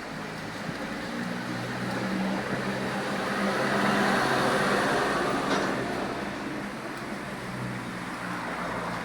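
Road traffic noise: a motor vehicle's engine hum rises to its loudest about halfway through, then fades away.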